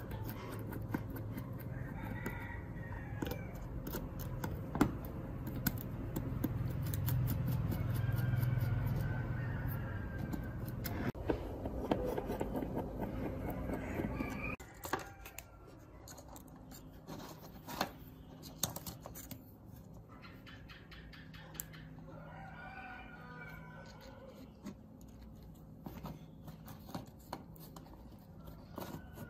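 Small precision screwdriver clicking and scraping as it turns out tiny screws from a toy drone's plastic body, with several drawn-out animal calls in the background. A low hum stops about halfway through.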